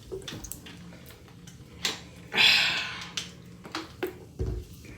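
Sprite being gulped down, with wet swallowing sounds and small clicks, a loud breathy hiss about two and a half seconds in, and a low thump near the end.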